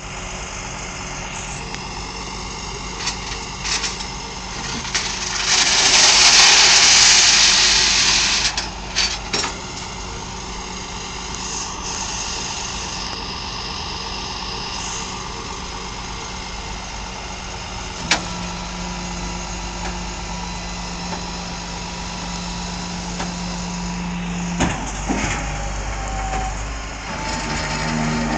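Tow truck's engine idling steadily, with scattered clicks and clanks. A loud rushing noise lasts about two seconds around six seconds in, and a steady hum grows louder for several seconds in the second half.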